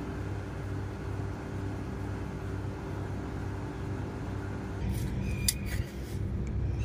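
Steady low machine hum with a few fixed pitches, and a handful of short clicks about five seconds in.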